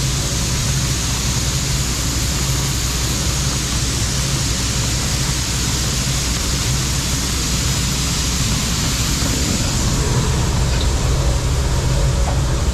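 John Deere 4400 combine running steadily while harvesting corn: a constant low engine hum under a steady rush from the threshing machinery and fans, a little louder near the end.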